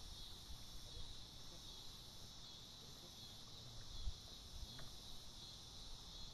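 Steady, high-pitched chorus of insects, with faint low rumbling and a brief low thump about four seconds in.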